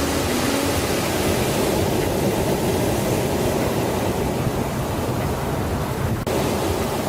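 Steady rushing noise, with a short dropout about six seconds in.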